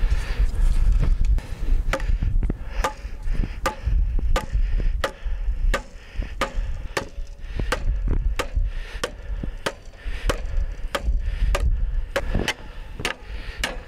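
Hammer blows fastening a wooden fence rail to its post: sharp strikes at a steady pace of about two a second, starting about two seconds in and running on with brief pauses.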